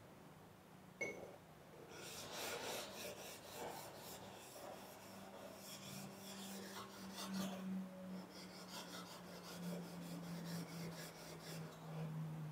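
Steel plane blade rubbed back and forth on a Trend diamond sharpening plate, a faint rasping scrape in quick repeated strokes, several a second, as the unsharpened blade is flattened. A small click about a second in.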